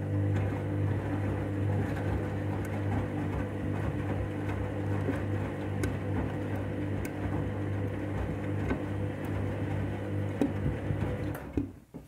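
Washing machine motor humming steadily as it turns the drum during the wash, cutting out about half a second before the end. The drum is loaded with a high water level and only two items, which the owner thinks makes it struggle to rotate.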